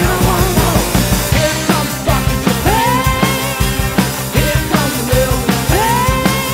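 Rock band playing: electric guitars and drums keeping a steady beat, with long gliding pitched notes over the top.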